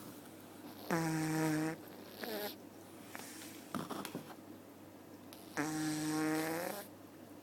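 Sleeping cat snoring: two snores of about a second each, roughly four and a half seconds apart, each on a steady pitch, with softer breaths between them.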